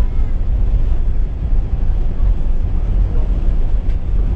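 Low, steady rumble inside the cabin of a four-engined jet airliner rolling along the ground after landing: the jet engines running and the wheels rumbling on the wet tarmac.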